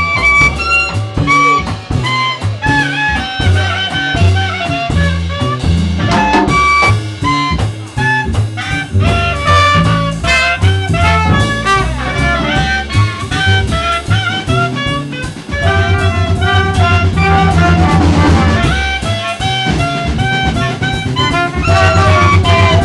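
Live jazz jam: a clarinet and a saxophone play melody lines over a walking bass and drums, the bass line growing fuller and steadier in the last several seconds.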